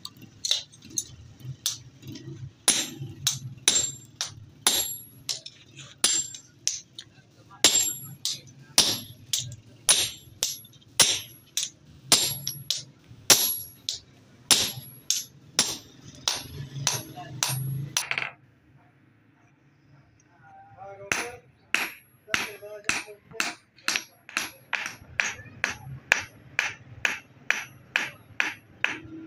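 Hand hammer forging a red-hot steel adze (basula) blade on an anvil: a steady run of metal-on-metal blows, about two a second, each with a short bright ring. The blows stop for about three seconds partway through, then resume slightly faster.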